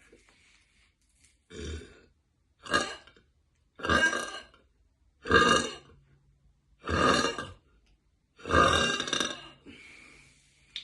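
A woman burping six times in a row, loud and deep, about one and a half seconds apart. Each burp runs a little longer than the one before, and the last lasts about a second.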